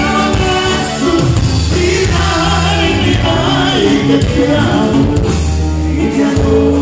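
Live norteño band playing, with a man singing lead over button accordion and guitar, and a steady bass line underneath.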